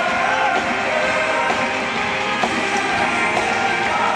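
Loud rock-style show music with a singing voice, at an even level.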